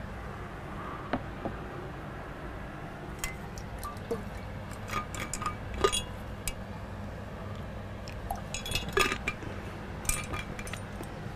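Scattered light clicks and clinks of small objects being handled, most of them clustered about halfway through and again near the end, over a steady low hum.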